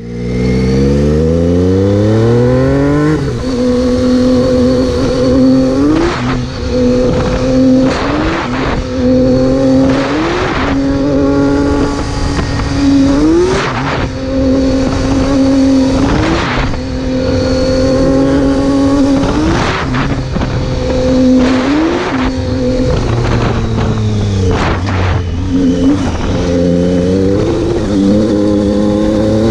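Triumph Tiger 800 XCx's inline three-cylinder engine roaring under hard throttle. The revs climb steeply at first, then hold high with short dips and climbs every two or three seconds as the throttle is worked. Near the end the revs fall away and climb again.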